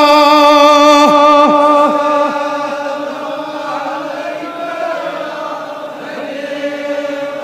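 A man chanting Darood, the devotional salutations on the Prophet, holding a long, wavering sung note that fades about two seconds in. A steady, softer drone carries on beneath it.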